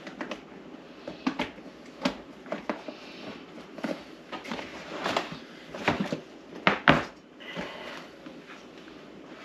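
Hard plastic incubator parts clicking and knocking as they are handled and pushed into the plastic base, with a sharper pair of knocks about seven seconds in.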